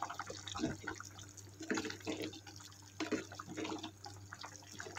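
Thick coconut chicken curry bubbling at a boil in a clay pot, with irregular soft plops and blips, while a steel ladle stirs through it and lifts the chicken pieces.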